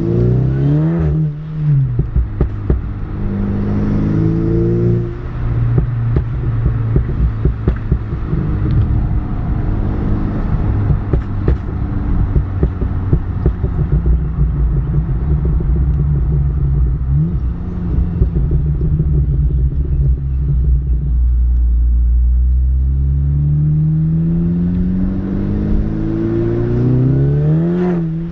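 Mk6 Volkswagen GTI's K04-turbocharged 2.0-litre four-cylinder engine. It revs up and falls back twice at the start, then runs at fairly steady revs with a long run of rapid, irregular exhaust pops and crackles. Near the end the revs climb steadily for several seconds and drop away.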